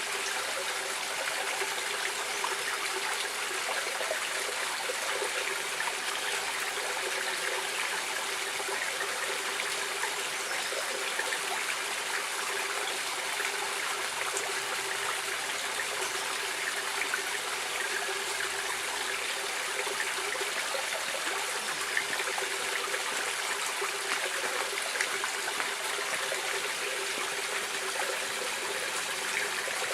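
A stream of water running and splashing over rocks, a steady, even rush with small trickling splashes throughout.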